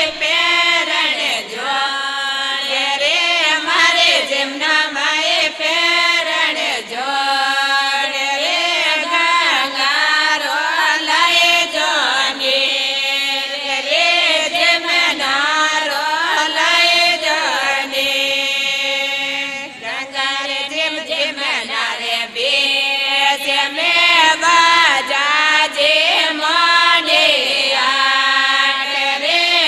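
Women of a Marwari mahila mandal singing a Rajasthani devotional folk song to Ganga Maiya in a steady, chant-like group voice.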